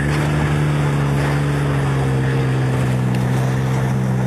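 Wild Panther 8x8 amphibious ATV engine held at steady high revs after revving up, one even drone.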